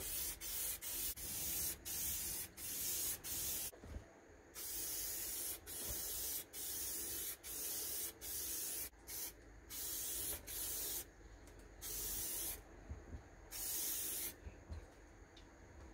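Aerosol spray-paint can hissing in a rapid string of short bursts, each under a second, with brief pauses between them. The spraying stops shortly before the end.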